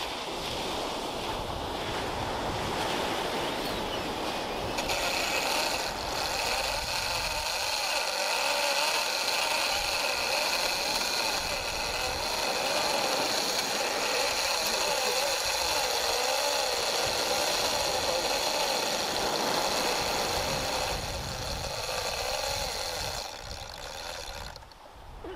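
Heavy conventional shark-fishing reel whining under load while a hooked shark is fought. The high, slightly wavering whine starts abruptly about five seconds in and dies away a couple of seconds before the end.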